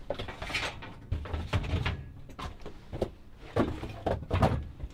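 Rummaging through a pile of junk: a plastic lid, cardboard boxes and old plastic oil bottles and cans being shifted, knocking and scraping against each other in a string of short clatters.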